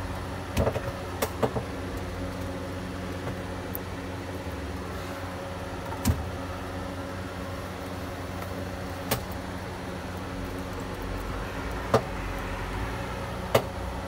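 A steady motor-like hum, with about six sharp clicks or knocks scattered through it.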